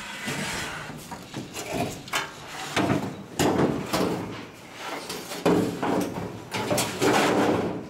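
Bare, media-blasted steel truck body panels being handled and set onto a trailer: a series of metal clanks and knocks mixed with longer scraping of metal on metal.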